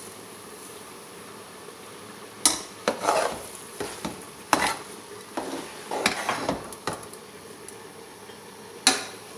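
Metal spoon stirring sugar into a thick mass of grated carrots in a metal pot, scraping and knocking against the pot several times from a couple of seconds in until near the end, over a faint steady hiss of the cooking.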